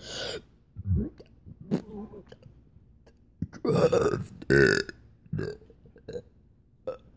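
A person burping, trying to talk through the burp: a few short burps in the first couple of seconds, then one longer, louder burp a little past halfway.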